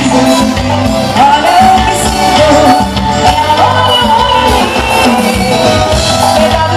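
Live band playing a song, with singing over the band.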